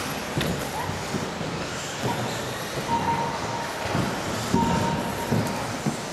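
RC off-road buggy driving on a carpet track: a steady rumble of tyres and drivetrain with short knocks. A thin high whine comes in briefly twice, about three and four and a half seconds in.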